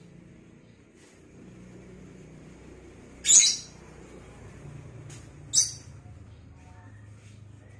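Lovebird giving two short, shrill chirps, the first about three seconds in and a briefer one about two seconds later, over a low steady hum.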